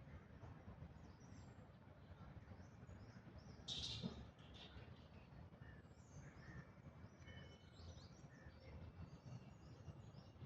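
Faint outdoor ambience of many small birds chirping over a low background rumble, with one louder, short call about four seconds in.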